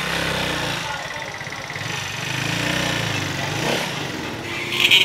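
A small engine running close by in street traffic, its pulsing low note swelling and easing off, with a short shrill sound near the end.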